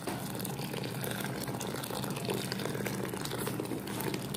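Hot water pouring in a steady stream into a partly filled glass bowl, splashing into the liquid.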